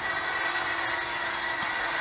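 Super Farm pulling tractor's diesel engine running flat out under full load as it drags a weight-transfer sled, heard as a steady, even noisy rush.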